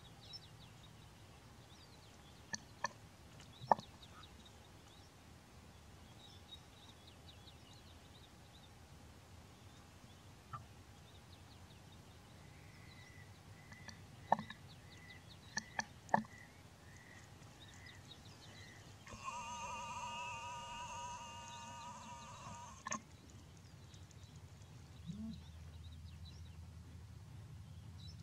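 Quiet bush ambience with faint scattered bird chirps. Partway through comes a run of evenly spaced whistled notes, followed by a harsh, rasping call lasting about four seconds. Several sharp clicks are the loudest sounds, a few near the start and a cluster about halfway.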